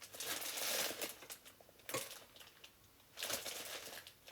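Food packages and containers being handled, with rustling and crinkling and light clicks and knocks in three short bursts.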